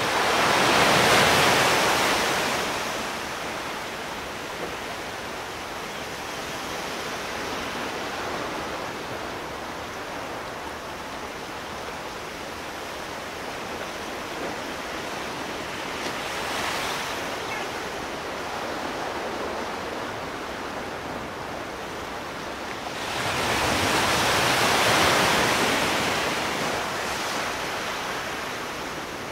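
Sea surf: waves breaking, with a steady rush of water between them. A large wave crashes near the start, a smaller one just past the middle, and another large one near the end.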